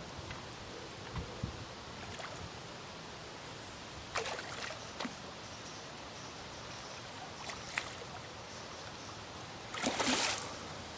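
Hooked wild carp of about 5 kg thrashing at the surface: a few short splashes, the longest and loudest near the end.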